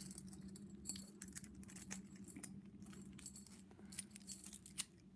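Keys jingling and clicking against a Blue Spot 50 mm padlock as it is handled: a string of light metallic ticks, with a few louder clicks about a second, three seconds and four seconds in.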